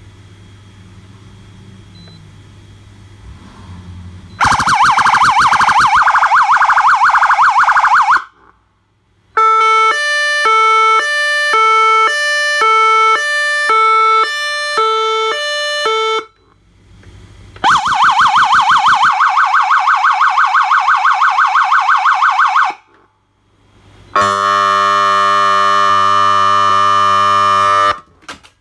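Electronic emergency-vehicle siren run through its tones, loud: a very fast warble starting about four seconds in, then a stepped pattern of alternating notes changing about twice a second, another fast warble, and last a steady buzzing horn tone, with short gaps between them. A low steady hum comes before the first tone.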